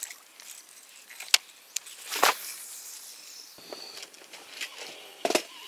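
Handling noises from spin-fishing tackle: two sharp clicks a little over a second in, a short rushing noise about two seconds in, and a few softer knocks with a sharper one near the end.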